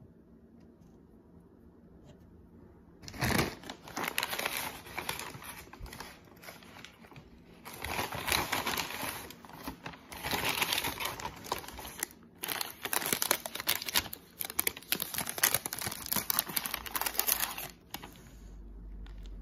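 Paper takeout bag and paper food wrappers crinkling and rustling as they are opened and rummaged through. It starts about three seconds in, comes in several runs with short pauses, and stops shortly before the end.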